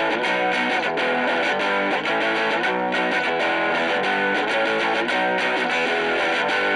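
Background rock music led by a distorted electric guitar, at a steady level.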